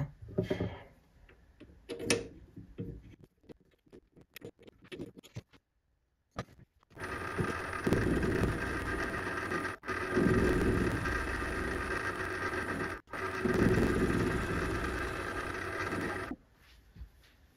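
A few metal clicks and taps as a rough aluminium bar is set in a four-jaw lathe chuck. About seven seconds in, a small benchtop metal lathe starts and runs steadily with a whine, turning the aluminium bar. It stops shortly before the end, with two very brief breaks along the way.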